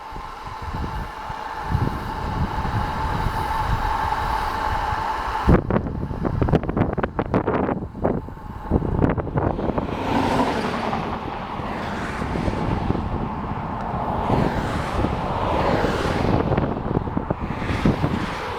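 Wind rushing over a handheld pocket camera's microphone, with tyre and road noise, while riding a bicycle at about 30 mph. A steady hum runs through the first five seconds or so, then the noise turns gusty and uneven.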